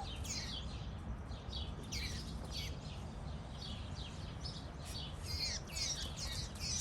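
A bird chirping over and over: short high chirps, each falling steeply in pitch, coming about two a second and faster toward the end, over a steady low rumble.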